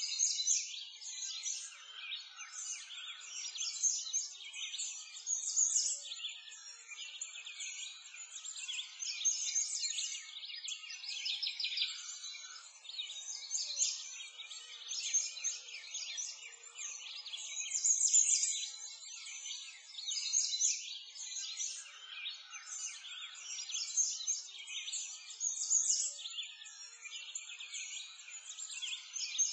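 A dense chorus of small birds chirping and twittering without pause, all high-pitched.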